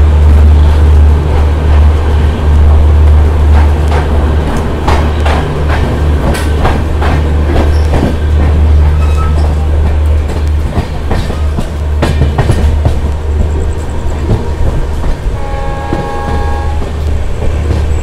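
Indian Railways express train rolling out of a station, heard from the sleeper coach door: a steady low rumble with wheels clicking and clattering over rail joints and points. Near the end a horn sounds once, held for about a second and a half.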